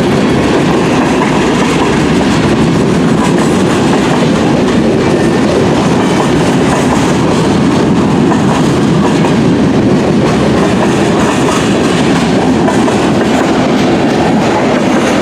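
Freight train cars rolling past, a loud, steady rumble of steel wheels on the rails with no break.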